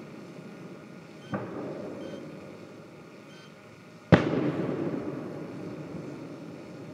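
Fireworks going off in the distance: a sharp bang about a second in, then a much louder bang about four seconds in whose boom rumbles and fades over the next couple of seconds.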